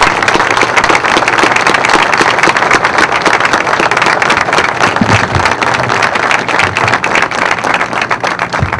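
A crowd applauding: dense, steady clapping that eases off slightly near the end.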